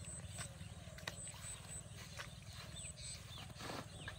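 A steady low rumble with faint, scattered bird chirps and a few soft clicks.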